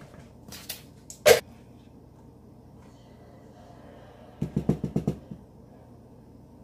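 A spoon knocking against the rim of a pot while scooping muffin batter: one sharp knock about a second in, then a quick run of about eight taps near the five-second mark.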